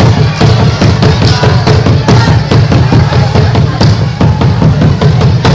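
Loud dance music with a heavy bass drum beat, played over a sound system.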